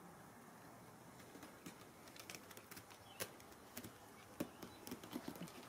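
Ragdoll kittens playing on carpet: faint, irregular light taps and clicks of paws and claws scuffling and batting a small toy, starting about a second and a half in and coming more often near the end.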